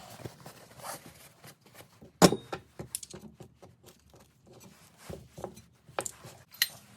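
Scattered clicks, clinks and light knocks of hand tools and small metal parts being handled during engine work, the sharpest knock about two seconds in.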